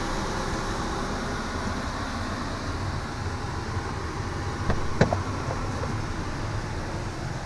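Steady low rumbling background noise, with two short knocks close together about five seconds in.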